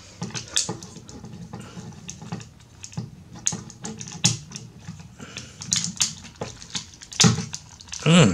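Hard plastic parts of a Takara Tomy Masterpiece MP-17 Prowl Transformers figure clicking and clacking under the fingers as its panels are worked during transformation: irregular light clicks, a few louder ones near the end.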